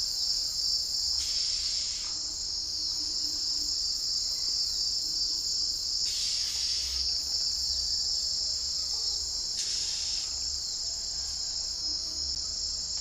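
Steady high-pitched insect drone that holds unbroken throughout. It is interrupted by three short bursts of hiss, each about a second long.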